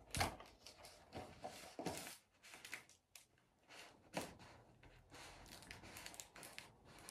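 Faint, scattered rustling and rubbing of latex balloons and ribbon being handled and tied. There are a handful of short, soft sounds, the clearest about four seconds in.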